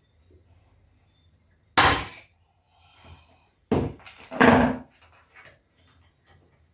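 Sharp knocks and clatter of tools being handled and set down on a work surface: one hard knock about two seconds in, then a louder cluster of knocks near four to five seconds in.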